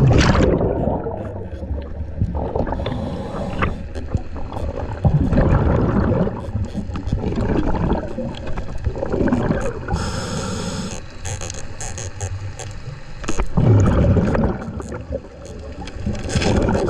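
Scuba diver breathing underwater through a regulator, heard from close by: gurgling bubble exhalations come in surges every three to four seconds, between hissing inhalations.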